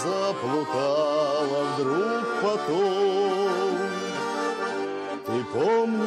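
Russian garmon (button accordion) playing a slow lyrical folk song, with a bayan accompanying it and a man singing the melody, his voice sliding between notes.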